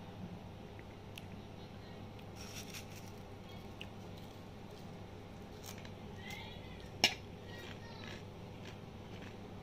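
Small clicks and taps of glass and dishes on a table over a faint steady hum, with one sharp click about seven seconds in.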